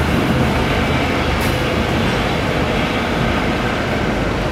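Slow-moving train: a railway passenger coach rolling along the track, a steady rumble with a single sharp click about a second and a half in.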